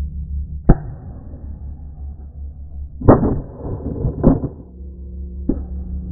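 Four shotgun shots at irregular intervals, about a second in, then three and four seconds in, then near the end. Each shot is a sharp crack, and the middle two are followed by a short ringing tail.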